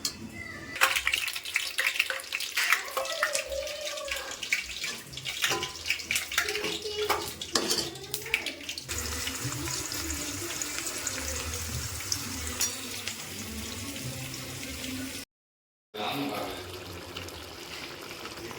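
A spoon clinking and scraping in a cooking pot as a masala is stirred, then a steady rush of running water.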